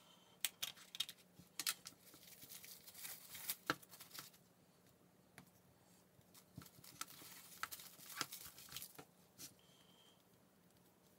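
Plastic wrap crinkling and rustling as it is handled and opened around a ball of sugar paste, in two stretches, with a few sharp clicks in the first couple of seconds.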